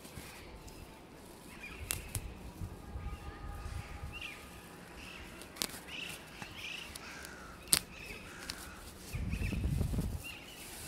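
Fingers scratching and plucking the dry, hairy fibres of a palm trunk close to the recorder's microphones, giving scattered crisp snaps and rustles. Small birds chirp throughout in the background, and a louder low rumble comes about nine seconds in.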